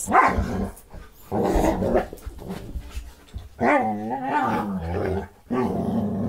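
Two dogs play-fighting and growling in short gruff bouts, with a longer growl that wavers up and down in pitch about four seconds in.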